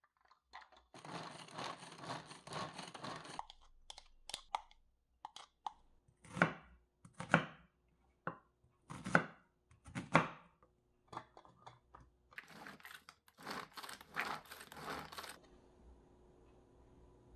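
A hand-operated food chopper with a glass bowl rattles in dense bursts as its blades spin, mincing onion. In between, a knife cuts through an onion onto a wooden cutting board in four sharp chops with a few lighter taps.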